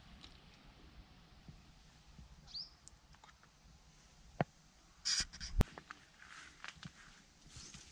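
Quiet outdoor ambience with faint birds calling: a short chirp and a few brief harsh calls. A few sharp clicks stand out, the loudest about five and a half seconds in.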